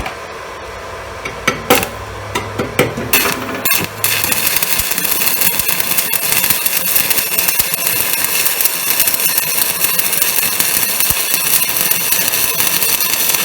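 Stick welding with a UONI 13/55 basic-coated electrode. A few sharp taps and scratches come as the arc is struck, then about four seconds in the arc catches and burns with a steady, dense crackle while a bead is laid on steel plate.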